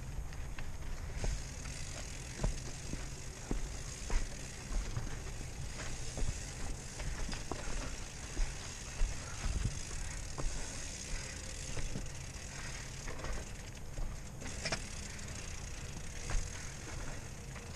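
Rocky Mountain Slayer full-suspension mountain bike rolling fast down rocky dirt singletrack, with tyres crunching over dirt and stones and irregular sharp knocks and rattles as it hits rocks. A steady low rumble runs underneath.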